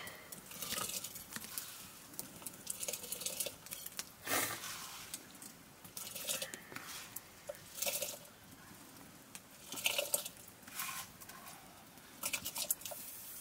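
Wet rice being scooped by hand from an aluminium bowl and falling into a pot, in irregular short squishing, pattering bursts.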